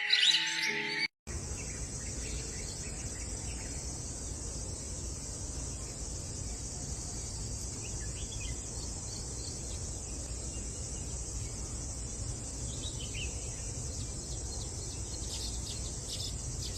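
A steady, high-pitched insect chorus over a low rumble, with a few faint bird chirps scattered through, most of them near the end. It begins after a short break about a second in; before the break, music with birdsong plays.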